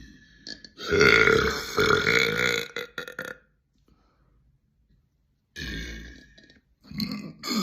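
Young women burping: one long, loud burp about a second in that lasts nearly two seconds, then after a short dead-silent gap, more burps near the end.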